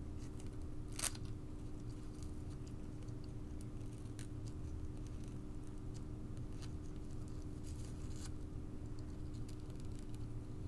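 Small scissors snipping the ends of a metallic ribbon: one sharp snip about a second in, then several fainter snips, over a steady low hum.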